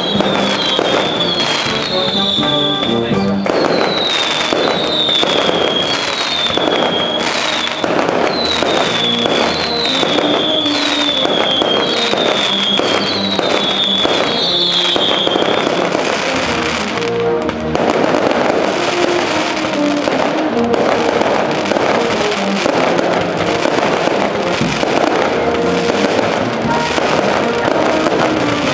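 Fireworks crackling and banging in rapid, continuous succession, mixed with music from loudspeakers. Short falling high chirps repeat about every second through the first half, then stop.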